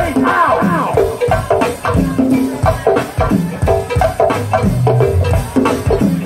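Live go-go band playing loudly through a PA: drums and percussion keep a steady beat under vocals and horns.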